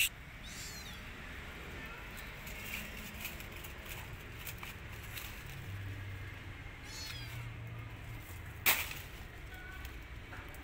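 Kitten meowing faintly now and then. A sharp crack about three-quarters of the way through is the loudest sound.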